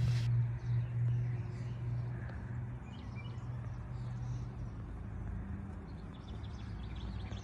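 Outdoor ambience: faint, scattered bird chirps over a low, steady hum.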